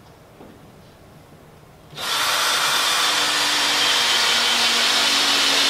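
Handheld power drill running steadily into the wooden chair frame for about four seconds. It starts suddenly about two seconds in and stops at the end.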